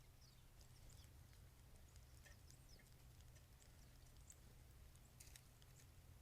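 Faint, scattered short bird chips and calls, with a few light clicks, over a steady low hum.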